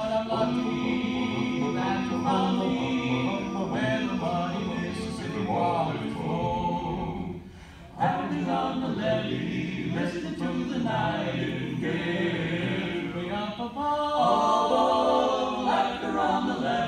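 Men's barbershop quartet singing a cappella in close harmony, with a short break just past halfway through before they come back in.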